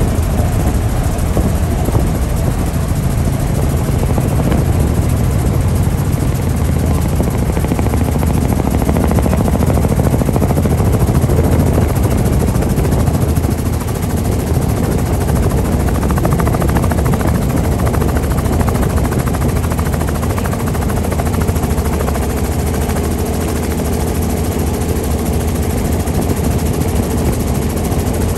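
Helicopter running steadily, engine and rotor noise heavy in the low end, dipping slightly about halfway through.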